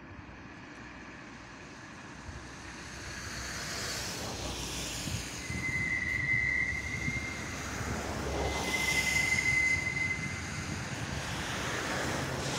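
Railway car retarders on a hump yard gripping the wheels of rolling freight cars: swelling rushes of noise three times, with a long, steady high-pitched squeal twice in the middle.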